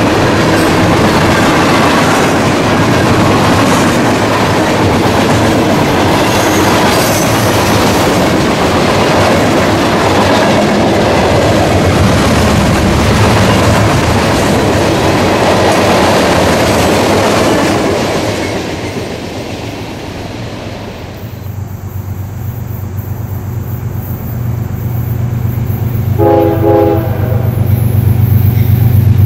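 Freight train of open hopper cars and tank cars rolling past at speed, with dense wheel-on-rail noise that eases off about two-thirds of the way through. Then the deep engine rumble of approaching CSX GE ES40DC diesel locomotives builds steadily, with a brief horn note near the end.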